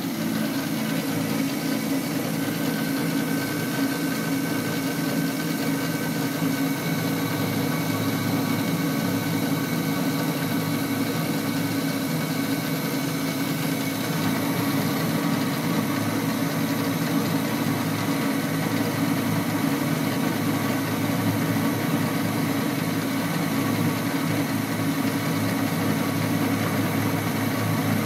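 A homemade CNC lathe running steadily, its spindle motor humming with several steady tones while the tool takes a turning cut on a metal bar. The builder says this motor makes a horrible sound and is not sure what is wrong with it.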